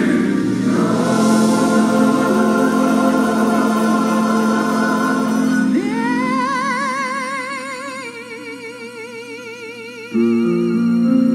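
Gospel choir and organ holding sustained chords. About six seconds in, a solo singing voice slides up into a long held note with wide vibrato that slowly fades. Near the end the organ and chords come back in loudly.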